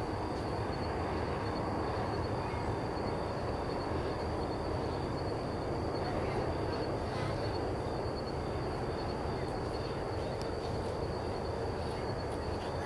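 Steady low outdoor background noise, with a high, rapidly pulsing insect trill running through it.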